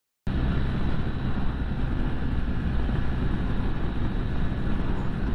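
BMW motorcycle riding at steady speed, heard from a camera on the bike: a constant engine drone under wind rush on the microphone. It cuts in abruptly just after the start.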